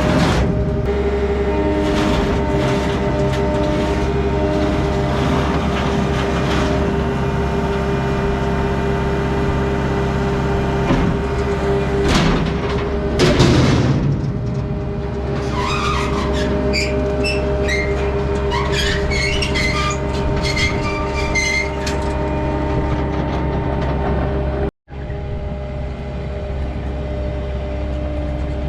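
A vehicle engine running steadily at an even speed, with intermittent rattling and clatter.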